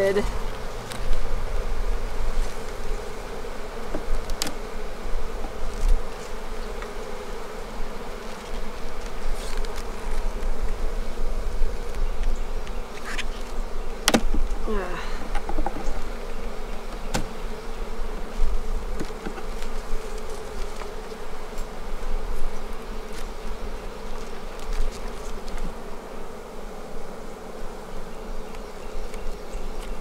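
Honeybee colony buzzing around an opened hive, a steady hum of many bees, with the colony getting feistier and louder as it is disturbed by the inspection. A few sharp knocks stand out over the hum.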